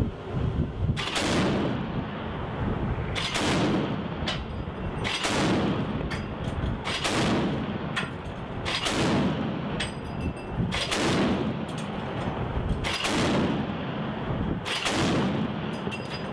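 A ship's deck-mounted gun firing single heavy shots, about eight of them, roughly two seconds apart. Each shot trails off in a rumble over about a second.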